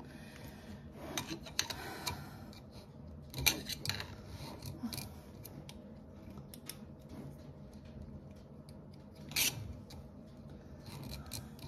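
Faint rustling and rubbing of a cloth apron being put on and tied, with a few small scattered clicks and taps, the sharpest about three and a half seconds in and again near the end.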